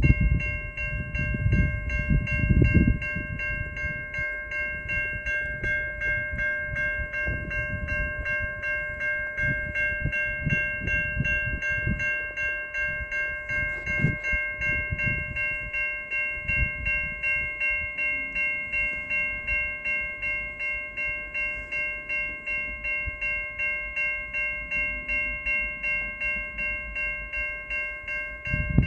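Lead EMD SD75I diesel locomotive's bell ringing steadily, about two strikes a second, with the same ringing tones sustained throughout. Diesel engine rumble swells and fades underneath as the train approaches.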